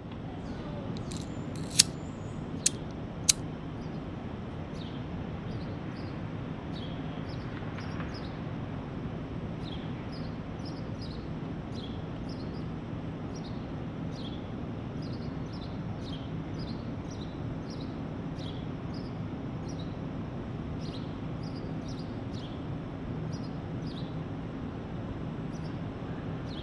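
City ambience: a steady low rumble with birds chirping, short high chirps repeating throughout. Three sharp clicks about two to three seconds in are the loudest sounds.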